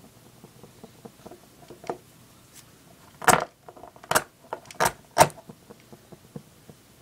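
Zippo lighter handled after refilling: four sharp metallic clicks between about three and five seconds in, over faint handling noise.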